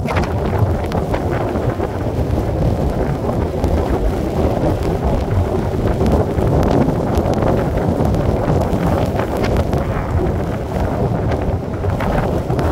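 Strong storm wind buffeting the microphone: a loud, continuous, gusting rush of wind noise.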